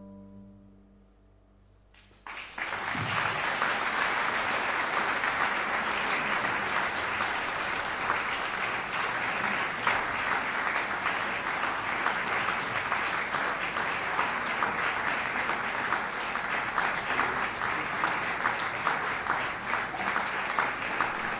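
The last held note of a clarinet, bayan, guitar and double-bass quartet fades away, and about two seconds in an audience breaks into applause that goes on steadily.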